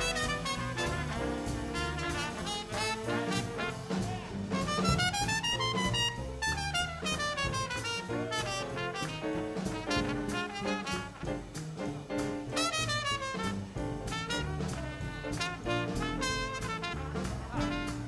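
Swing big band playing live, with its brass and saxophone sections over a steady beat. A horn line climbs and falls about five seconds in, and another climbs near twelve seconds.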